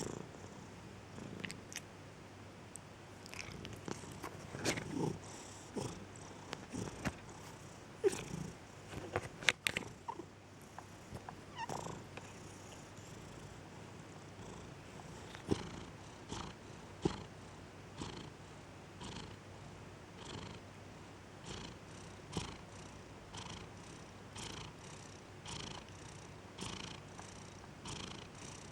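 Domestic cat purring, swelling and fading in a steady rhythm of about once a second. A few short, sharp clicks stand out above the purr.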